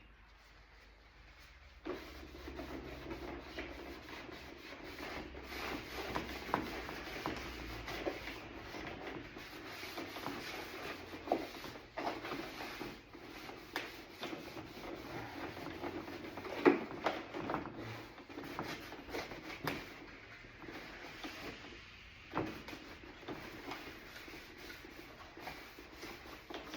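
A rag rubbing and scrubbing over a plastic car door panel, wiping it clean. The rubbing starts about two seconds in and goes on steadily, with scattered light knocks and clicks.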